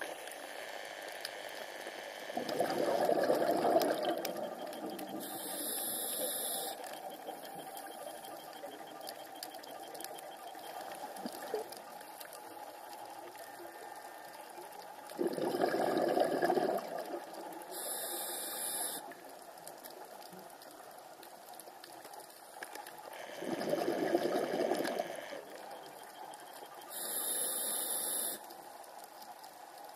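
Scuba diver breathing through a regulator underwater: three bubbling exhalations, each followed a couple of seconds later by a short high hiss of inhalation, over a steady underwater hiss.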